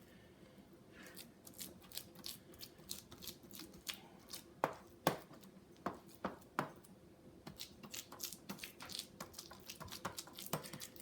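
Knife spreading and pressing a sticky oat-and-banana dough on a cookie sheet: irregular light scrapes and clicks, with a few sharper taps around the middle.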